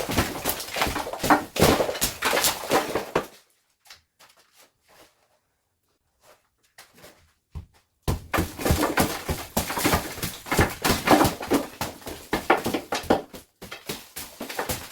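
Rapid knocks, thuds and clatter of demolition work, breaking apart a mud-plastered wall of an old earthen house. The knocking stops for about four seconds in the middle, then starts again.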